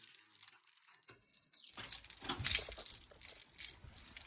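Handling noises at close range: irregular clicks, taps and rustling as small objects and packaging are moved about.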